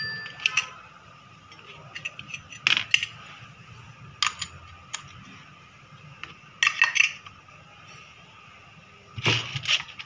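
Light metallic clinks and taps at irregular intervals from thin sheet-metal fan and diffuser plates of a vacuum cleaner motor being handled and fitted together by hand, with a heavier knock near the end.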